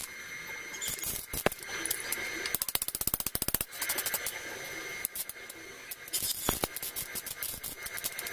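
Ratchet mechanism clicking in several quick runs of evenly spaced clicks, with scraping and handling noise between the runs.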